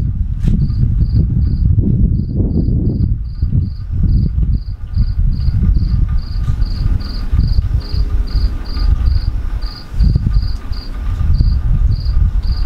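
Crickets chirping in a steady rhythm, a little over two high chirps a second, over a loud, uneven low rumble that swells and fades.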